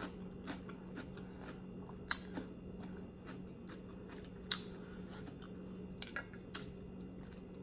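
Close-miked chewing of buffalo chicken wings: quiet, wet mouth clicks and smacks scattered through, with a few sharper clicks.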